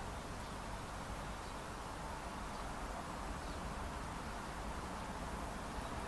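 Steady background noise: an even hiss over a low rumble, with no distinct sound standing out.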